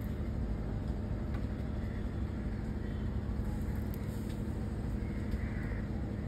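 Boat engine running steadily: a constant low rumble with a steady hum.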